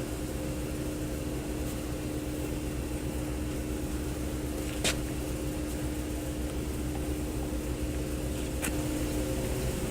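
A steady mechanical hum with a constant low tone, broken by two short clicks, one about five seconds in and one near the end.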